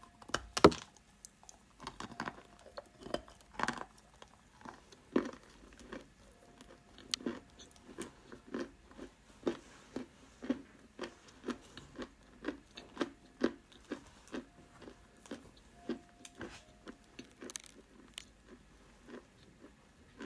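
Close-miked biting and chewing of dry edible clay. A loud crunching bite comes about a second in, then a steady run of crisp crunches, about one or two a second.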